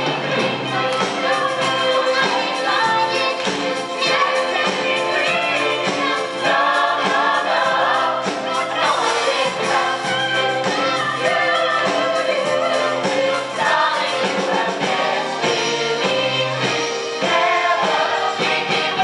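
Musical-theatre cast singing together over a live pit band.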